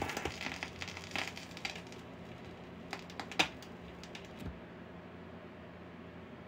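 Clicks and light rattling from the mechanism of a Radson Quantum T-1000 turntable worked by hand at its control levers, with one sharp click about three and a half seconds in. A low steady hum runs underneath.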